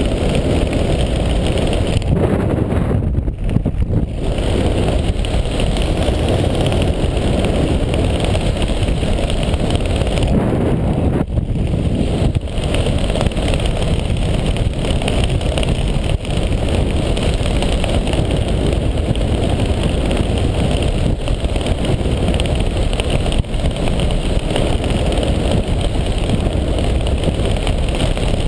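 Airflow buffeting the camera microphone during paragliding flight: a loud, steady rush of wind noise, heaviest in the low range.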